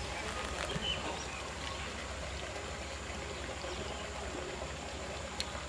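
Steady noise of running water pouring into the pond. A single sharp click comes near the end.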